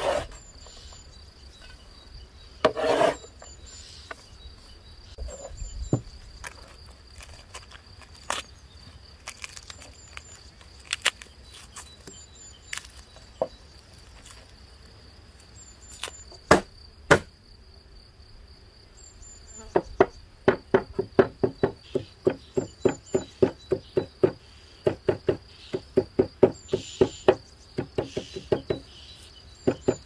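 Crickets or other insects make a steady high-pitched drone throughout, with scattered light clicks. From about twenty seconds in, a heavy serrated cleaver chops garlic on a wooden cutting board in quick, even knocks, about three a second.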